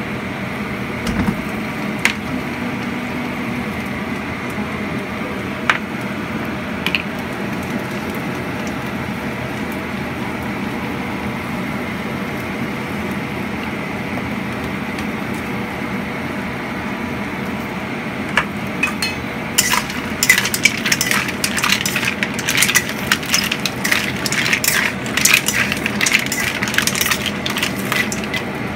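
Mussels being stirred in a wok: from about two-thirds of the way in, a spatula scrapes and the shells clatter against the metal in a rapid, irregular run. Before that only a steady hiss with a few single clicks.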